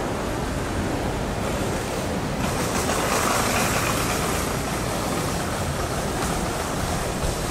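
Steady city street noise of passing traffic, swelling for a couple of seconds about three seconds in as a vehicle passes.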